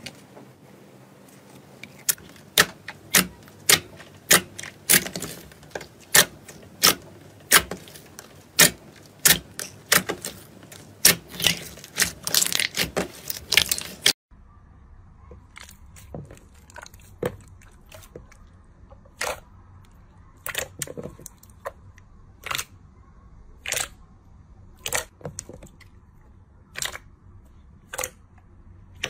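Hands pressing and poking glossy jelly slime, making sharp sticky clicks and pops about once or twice a second. About halfway through the clicks turn quieter over a faint low hum.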